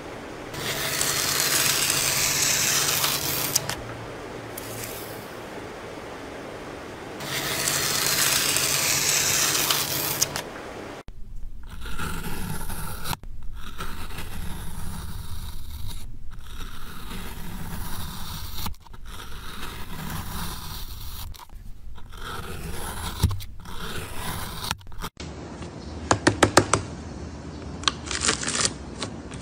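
Two loud scraping passes over a white embossed sheet, each lasting about three seconds. Then a Y-peeler's blade shaves a soft black cone in repeated scraping strokes, one every two to three seconds. Near the end a knife cuts into a slime flower covered in beads, with crackling clicks.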